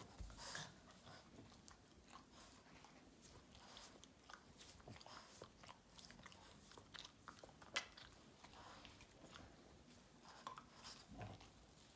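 Faint, scattered wet mouth clicks and smacks from a Boston terrier licking, with one sharper click past the middle.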